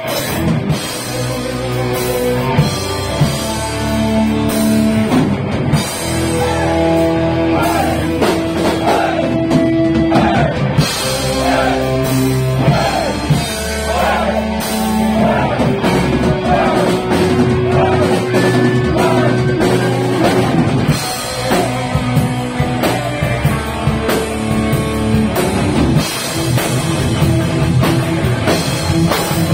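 Live heavy metal band playing: distorted electric guitars, bass and drum kit, with held melody notes over the rhythm.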